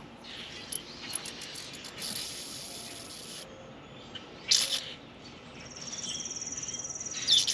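Small clicks of hand tools on the engine-bay fuel line, then a high hiss for about a second and a half as the line is opened, typical of pressurised fuel escaping. A short, louder scrape or rustle comes about halfway through, and a high steady buzzing trill near the end.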